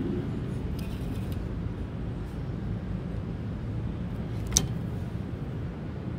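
Steady low background rumble of an outdoor open space, with one sharp click about four and a half seconds in.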